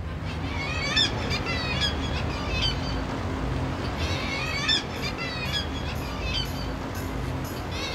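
Seabirds calling in quick series of short, sharp cries, in several bouts, over a steady low harbour rumble.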